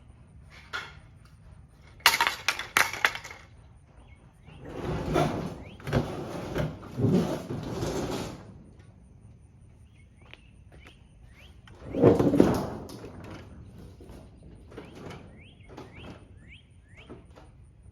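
A quick run of sharp knocks and clattering impacts, followed by several seconds of rough scraping, rushing noise and another such burst after the middle, with birds chirping near the end.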